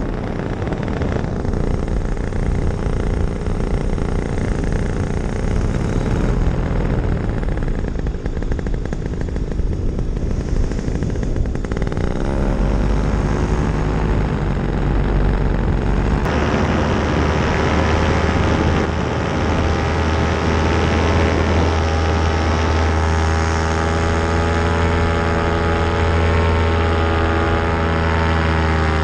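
Paramotor engine and propeller running steadily in flight. The engine note shifts about halfway through to a higher, steadier pitch as the throttle changes.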